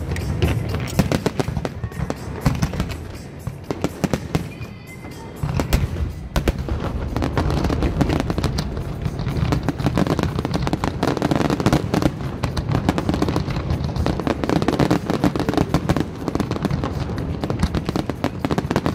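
Fireworks display: a rapid run of bangs and crackling shell bursts. It thins briefly about four seconds in, then builds into a dense, continuous barrage.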